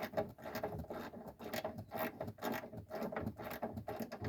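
Hand ratchet wrench clicking in quick, uneven strokes as a tight bolt is backed out.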